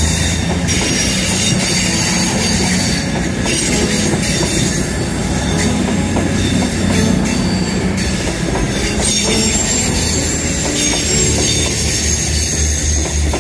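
Class 221 Super Voyager diesel multiple unit moving slowly through a station, with a steady low hum from its underfloor diesel engines. Its wheels squeal on the rails in thin high tones, with scattered clicks from the track.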